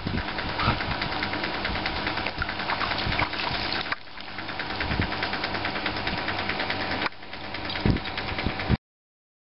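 Pool filter pump motor running with a steady hum and a rapid ticking rattle, broken by a few sharp thumps; it cuts off suddenly near the end.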